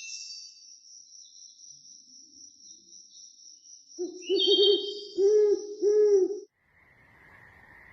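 An owl hooting three times, low and loud, over a thin steady high-pitched tone, starting about four seconds in. A steady faint night chorus sets in near the end.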